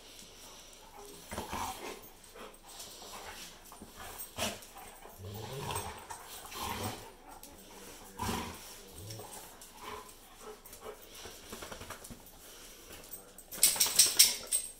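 Doodles and a Labrador retriever play-fighting on a tile floor, with low play growls and scuffling. A louder, sharper burst of sound comes near the end.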